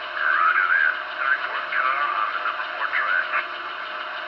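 Onboard sound system of an MTH HO-scale Union Pacific Veranda gas-turbine locomotive model playing its freight-yard radio chatter: a crackly, narrow two-way-radio voice over the steady idle sound of the turbine.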